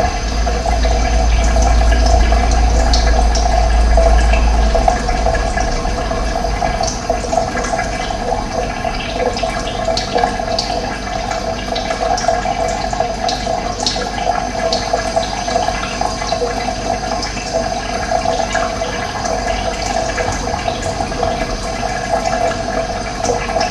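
Running water flowing steadily with a constant rushing sound, with a deep low rumble for the first five seconds or so.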